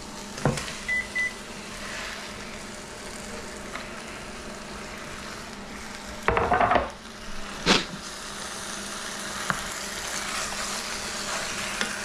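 Beef chunks and curry paste sizzling as they fry in an enameled cast-iron Dutch oven on an induction cooktop. There are two short beeps from the cooktop about a second in, and a few wooden knocks and a clatter from a bamboo cutting board being handled around six to eight seconds in.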